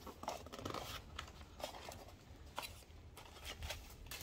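Packaging and small plastic parts being handled: scattered clicks and short rustles and crinkles.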